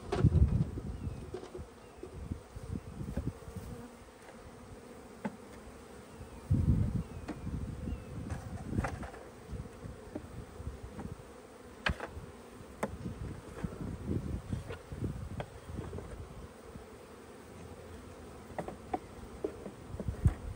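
A cloud of Italian honeybees buzzing steadily around freshly installed hive boxes, with a few sharp wooden knocks as foundation frames are set into the hive body and low gusts of wind on the microphone.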